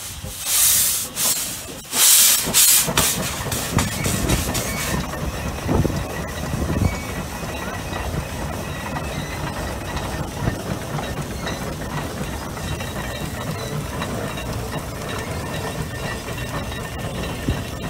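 Case 150 steam traction engine moving off under load: loud blasts of steam hiss about a second apart that come faster and shorter over the first five seconds, then a steady lower rumble with quieter hiss as it pulls the plow.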